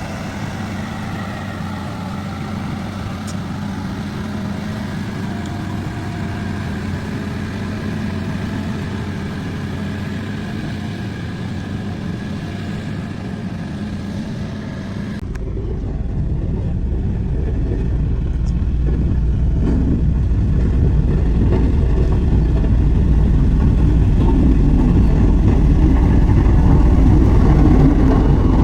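Heavy road construction machinery running, a steady engine hum with a clear pitch. About halfway through the sound changes suddenly to a deeper, louder rumble that grows toward the end.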